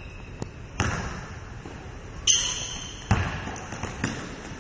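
Basketball bouncing on a wooden gym floor: four hard bounces at uneven spacing, ringing on in the hall, with a short high squeak about halfway through.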